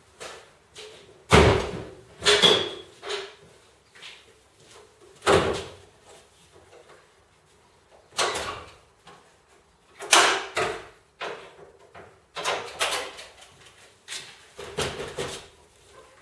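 A series of clunks and bangs from car doors and body panels being opened and shut, the loudest about a second in and again about five seconds in, with lighter knocks between.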